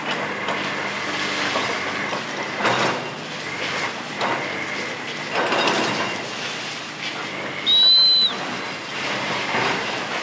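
Komatsu PC350 hydraulic excavator running while its concrete-crusher jaws bite into and tear apart a concrete structure, with crunching and clattering of breaking concrete and falling debris several times. A brief high-pitched squeal about eight seconds in is the loudest sound.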